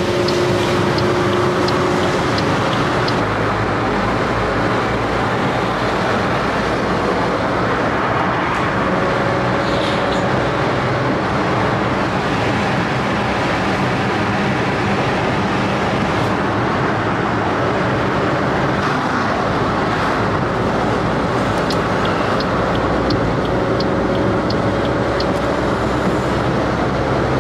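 Car driving at steady speed, heard from inside the cabin: a steady mix of tyre noise and engine hum, with a faint steady tone that comes and goes.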